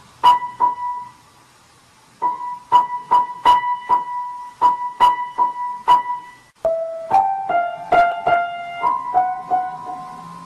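Piano notes: one high note struck over and over, a short lull about a second in, then the same note repeated again and a run of lower notes near the end.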